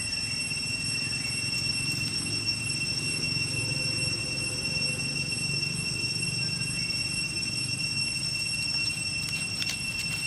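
Steady high-pitched insect drone in the forest, several pure tones held without a break, over a low rumble. A few light clicks near the end.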